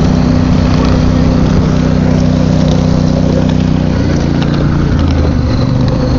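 Small engine of a ride-on miniature railway locomotive running steadily as the train moves along the track, its note changing about four seconds in.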